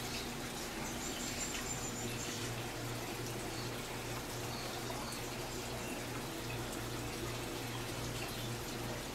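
Aquarium water bubbling and trickling from the aeration and filters of rows of fish tanks, a steady even wash of water noise over a constant low hum.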